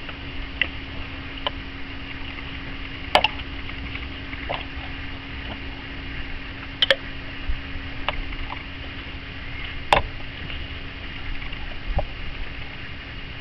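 Socket ratchet tightening a reverse light switch into a manual transmission: sharp single metallic clicks every second or two, over a steady low hum.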